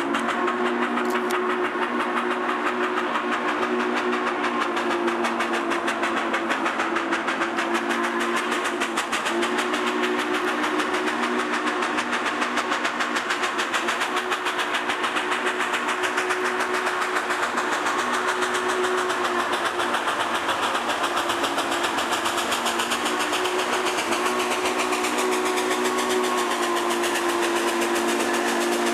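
A 2-8-0 steam locomotive's whistle blown as a chord in several long blasts with short breaks between them. Under it is the steady rapid beat of the locomotive's working exhaust as it approaches.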